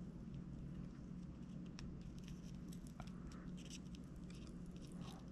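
Faint crackling and ticking of solder and flux under a soldering iron tip as a wire is soldered onto a lithium battery BMS pad, over a steady low hum.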